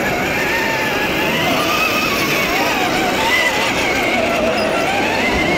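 Radio-controlled heavy-haulage truck model running. Its engine sound is steady, with wavering tones that drift up and down, over a dense background hubbub.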